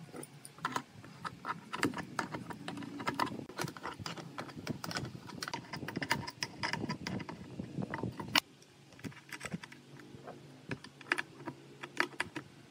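Quick, irregular metallic clicking and tapping as a steel adjustable wrench works a bolt through a wooden bracket. There is one sharp click about eight seconds in, after which the clicks come sparser.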